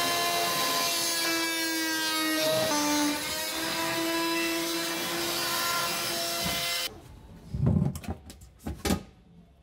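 Oscillating multi-tool cutting a fibreglass floor panel, a steady buzzing whine that shifts slightly in pitch under load, stopping suddenly about seven seconds in. Then a couple of loud knocks as the cut panel is handled and set into place.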